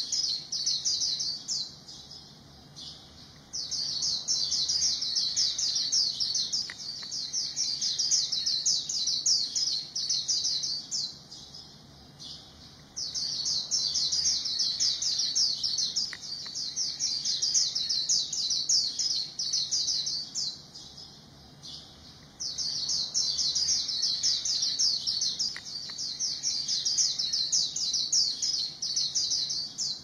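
A white-eye singing long runs of rapid, high-pitched twittering, each lasting several seconds, broken by three short pauses of a second or two.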